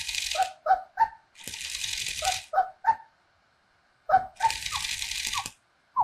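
Silverlit Pupbo robot dog toy's speaker playing its response to a sing command: quick electronic yips that bend in pitch, in short runs, mixed with two hissing passages about a second long, and a pause of about a second in the middle.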